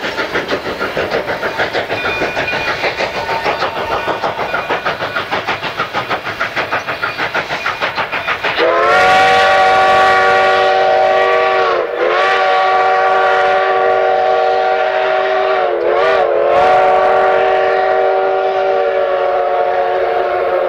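Narrow-gauge K-36 steam locomotive 488 running, its exhaust chuffing in a quick, even beat. About eight and a half seconds in, its chime whistle opens into one long chord blast that dips in pitch briefly twice.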